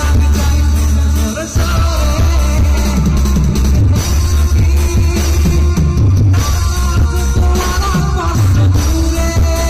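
Live band playing loud amplified music: electric bass with sliding notes, electric guitar, keyboard and drums.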